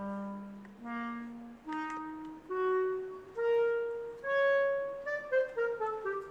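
Background music: a single melody instrument plays a slow rising line of long held notes, about one a second, then quicker, wavering notes from about five seconds in.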